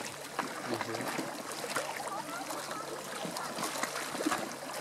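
Seafront ambience: water lapping and splashing against the shore, with faint people's voices in the background.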